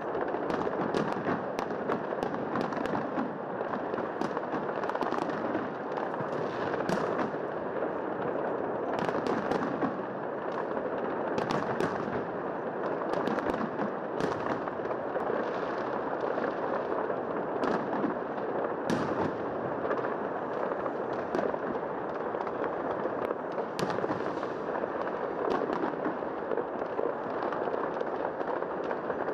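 New Year fireworks going off continuously: a dense crackle with many sharp bangs and pops.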